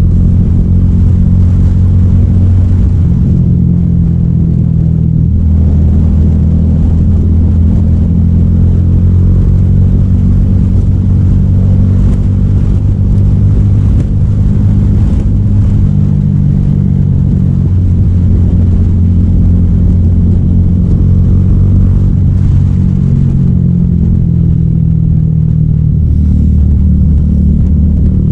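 300SR motorcycle engine running through an Akrapovic M1 exhaust: a loud, steady low note whose pitch shifts up and down a few times.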